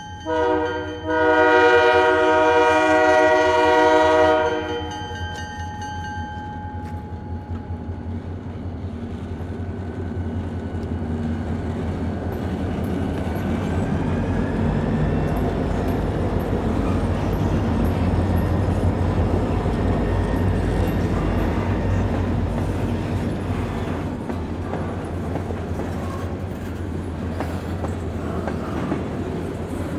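Diesel freight locomotive air horn: a short blast, then a long blast of about three seconds. The train then rolls past, its engines and wheels rumbling, building to a peak midway and easing off toward the end.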